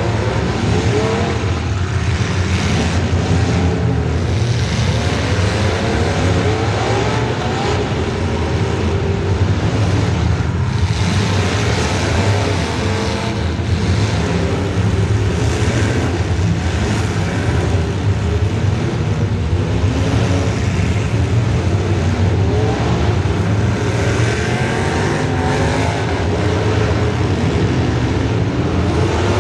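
Demolition derby car's small-block Chevy V8 running loud, its revs rising and falling over and over as it is driven hard.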